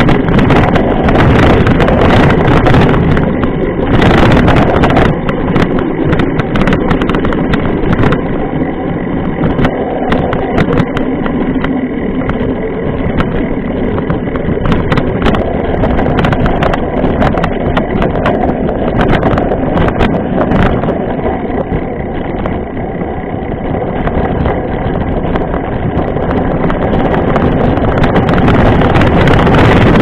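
Mountain bike ridden over a dirt and gravel road, heard from a camera mounted by the knobby front tyre: a steady rolling rumble with many small clicks and knocks from the gravel and the rattling bike, and wind on the microphone. It eases off a little in the middle and grows louder again near the end.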